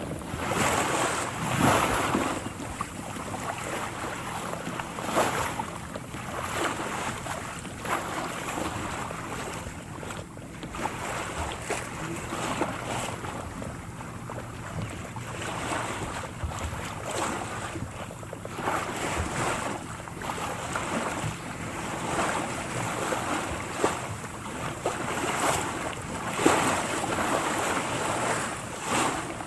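Water splashing and sloshing over and over, irregular louder splashes every second or two over a continuous wash of moving water.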